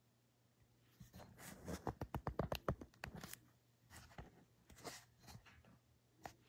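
A quick run of scratchy rustling clicks lasting about two seconds, then a few scattered single taps: objects being handled close to the microphone.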